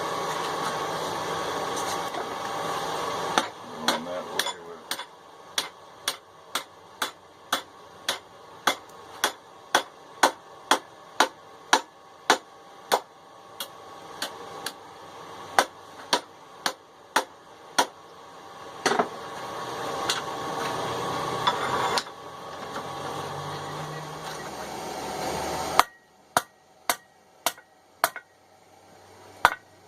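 Blacksmith's hand hammer striking hot steel on an anvil, forging small tongs. The blows come steadily about two a second over a steady background noise. After a sudden drop in the background near the end, a few more blows ring out.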